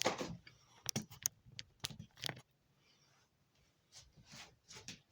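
A string of short clicks and rustles, about a dozen in the first two and a half seconds, then a quiet gap and a few fainter rustles near the end: small handling noises.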